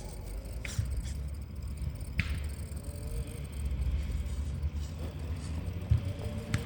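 Traxxas TRX-4 RC crawler's electric motor and gearbox working slowly under a climb, a faint wavering whine over a low rumble. A few sharp knocks or scrapes as the truck goes over the terrain, the clearest about two seconds in.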